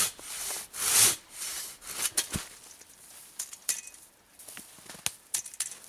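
Silky Katanaboy 650 folding saw rasping through a log in two strong strokes, followed a second later by a dull thump and then scattered light knocks and crunches.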